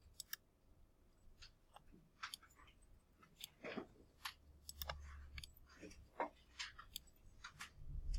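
Faint, irregular computer mouse clicks, a dozen or more, spaced unevenly.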